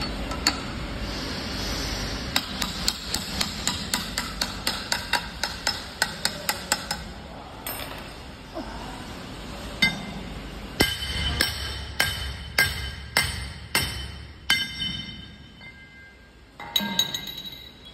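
Hammer blows on steel, driving a ball bearing down onto a hub shaft: a quick run of sharp strikes, about three a second, then after a pause a slower run of harder blows that ring on briefly, and one last strike near the end.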